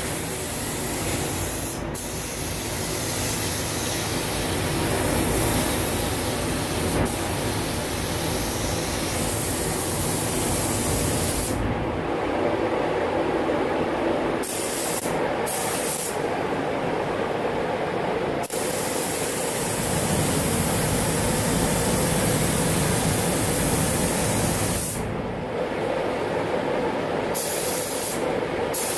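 Compressed-air gravity-feed paint spray gun hissing steadily as paint is sprayed onto a body panel. The hiss stops and restarts several times around the middle and near the end, and a steady low hum runs underneath.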